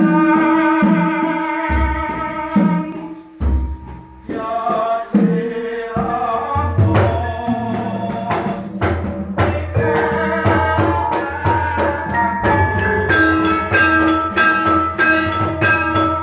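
Javanese gamelan: a solo voice finishes a sung phrase, a few kendang drum strokes follow, and about six seconds in the ensemble of bronze metallophones, gong-chimes and drums comes in together and plays on.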